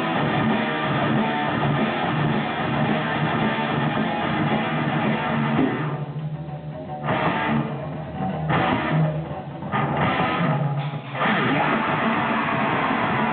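Live rock band with distorted electric guitars, bass and drums playing a metal song. About halfway through the band breaks into a stop-start passage, dropping to low held notes between sharp full-band hits, then comes back in at full volume.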